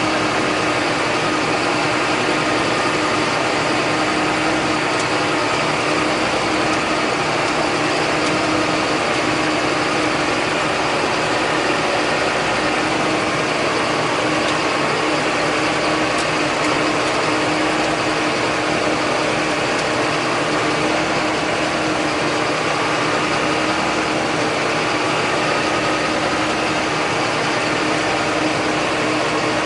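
John Deere 8100 tractor's six-cylinder diesel running steadily with a constant mechanical hum and whine, no change in speed.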